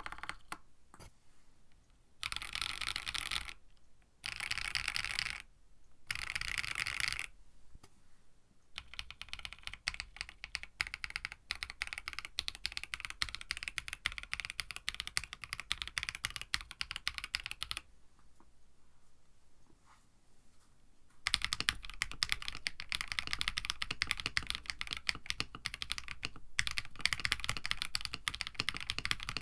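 Mechanical keyboard with KTT Strawberry linear switches in a KBD67 Lite case with an FR4 plate. The stock switches are mashed in three short rapid bursts across a few keys, then typed at a steady pace. From about two-thirds of the way in, typing resumes louder on the same switches with their top housings lubed with Krytox 3203.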